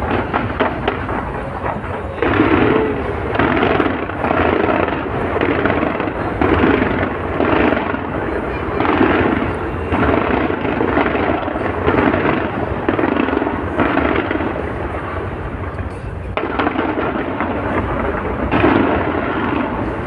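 Fireworks display: shells bursting in quick succession, about one loud bang a second over a continuous crackle, with a crowd's voices underneath.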